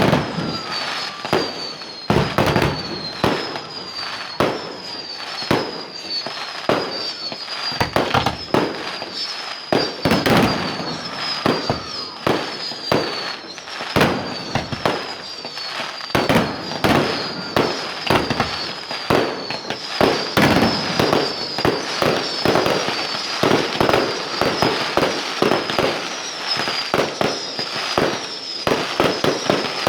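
Fireworks display: a dense run of bangs and crackling bursts going off one after another, with a short high falling chirp repeating over and over behind them.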